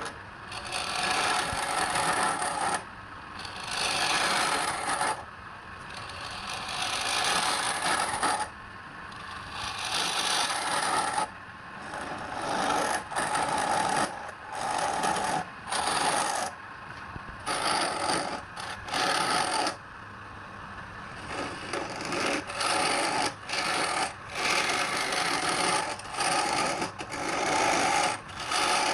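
Wood being worked on a lathe: a tool scraping or sanding the spinning wood in repeated passes of half a second to two seconds, with short breaks between them.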